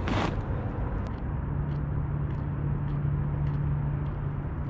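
Wind rumbling on the microphone over open ice, with a steady low hum from about a second in until near the end.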